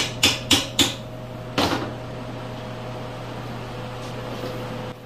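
Sharp knocks, three in quick succession about a quarter second apart, then a heavier one about a second later, over a steady low hum.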